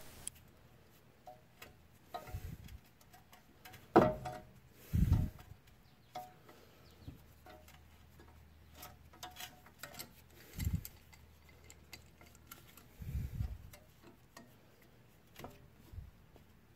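Scattered light metal clicks and a few dull knocks, the loudest about four and five seconds in, as a steel C-clamp is turned and moved from one piston to the other to press back the twin pistons of a brake caliper.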